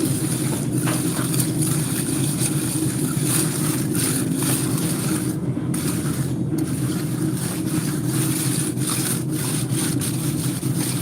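Concrete-pouring machinery engine running steadily with a deep, even drone.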